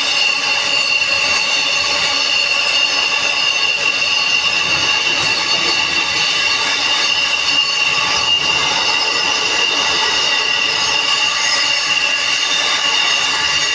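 Container freight train wagons rolling past on the track: a loud, steady running noise from the wheels on the rails, with several steady high-pitched tones over it.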